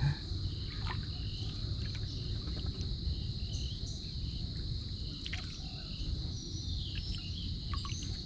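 Insects trilling in a steady, unbroken drone at one high pitch, over a low rumble, with a few faint scattered chirps and clicks.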